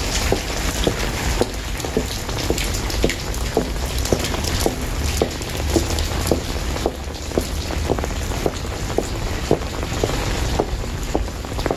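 Steady rain falling, with scattered drop ticks, and footsteps walking through it at an even pace of about two steps a second.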